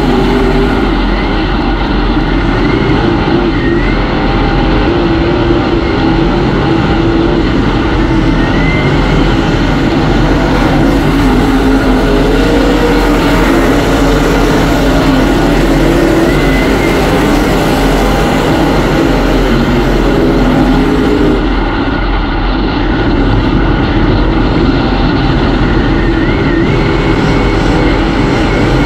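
Dirt-track race car's V8 engine running hard under racing load, heard from inside the cockpit. Its pitch rises and falls as the driver gets on and off the throttle around the track.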